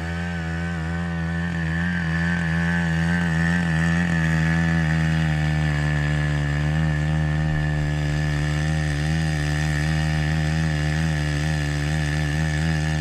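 Small petrol engine of a walk-behind tiller running steadily, its pitch wavering slightly as it works the soil.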